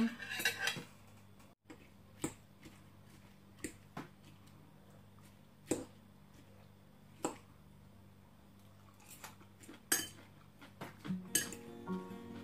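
Metal fork and spoon clinking against a glass salad bowl and plates, a dozen or so separate light clicks at uneven intervals over a faint steady low hum. Music comes in faintly near the end.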